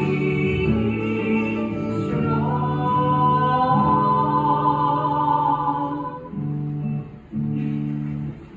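Stage musical number ending on long sustained sung notes over instruments, thinning out and dropping away near the end.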